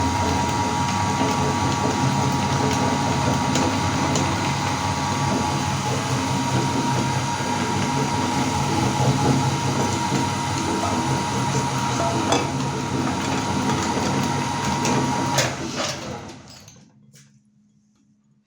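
Electric meat grinder running with a steady motor hum and a noisy grinding rush, with occasional sharp clicks. About sixteen seconds in it is switched off and winds down to near silence.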